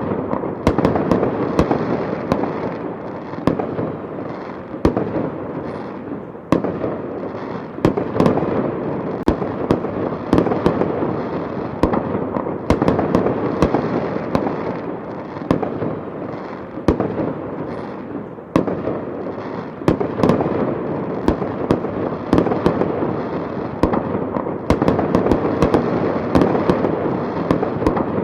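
Fireworks and firecrackers going off nonstop, a dense run of sharp bangs and crackling with hardly a gap.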